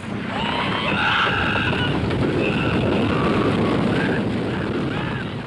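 Roller coaster train running fast along a wooden track: a dense rattling, clattering rumble that swells up at the start and eases off near the end.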